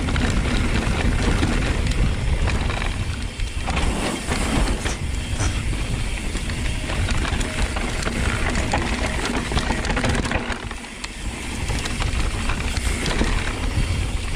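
Downhill mountain bike rolling over a dirt trail: steady wind rush and low rumble with frequent rattling clatter from the bike, and a brief lull about eleven seconds in.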